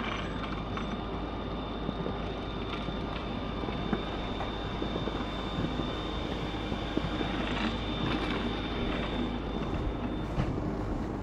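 Machinery running steadily, a mechanical rumble with a thin high whine that stops about ten seconds in.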